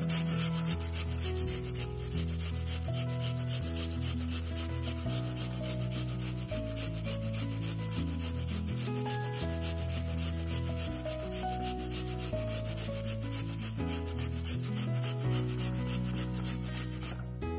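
Rapid, even rubbing or scraping strokes, several a second, over soft background music with held notes and a slow-moving bass line. The strokes stop shortly before the end while the music continues.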